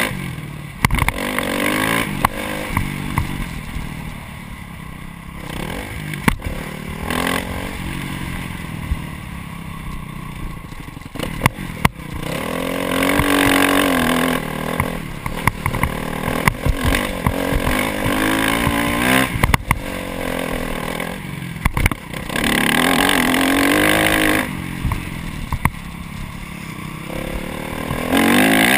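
Honda CRF 250 four-stroke single-cylinder dirt-bike engine revving hard in several bursts, its pitch climbing and falling, easing off between them. Sharp knocks and clatter come from the bike riding over rough dirt.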